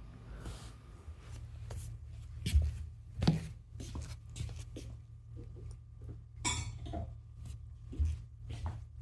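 Scattered light knocks and clicks with some rubbing and rustling, as of small objects being handled; the sharpest knocks come about two and a half and three seconds in, with a short rustle a little after six seconds.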